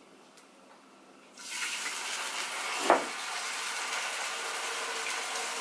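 A steady rushing noise starts abruptly about a second and a half in, after quiet room tone, with one short knock about three seconds in.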